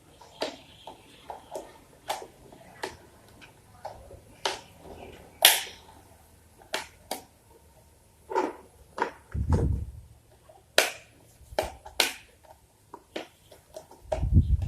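Irregular small clicks and taps, with a low thump about two-thirds of the way in and another near the end.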